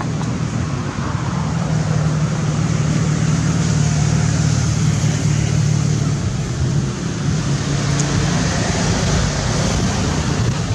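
Steady low drone of a running engine, with an even hiss above it.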